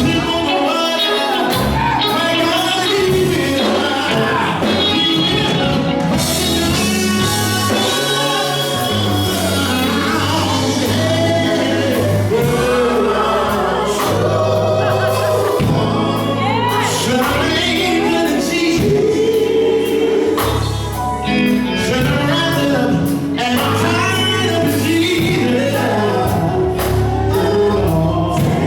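Gospel music: singing voices over a band, with a steady bass line and a beat.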